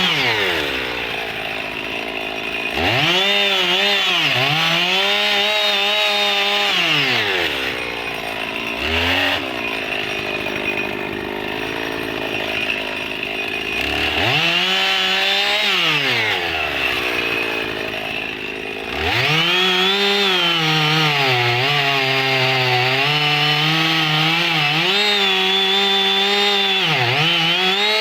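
Husqvarna 55 two-stroke chainsaw revving up to full throttle and dropping back to idle several times. Near the end it holds at high revs, the pitch dipping briefly as the chain bites into thick logs.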